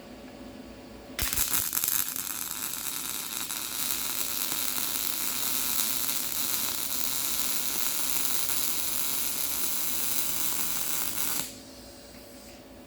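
Small YesWelder MIG welder with CO2 shielding gas running a weld bead: the arc strikes suddenly about a second in, holds a steady crackling hiss for about ten seconds, and stops abruptly near the end. A steady hum runs underneath.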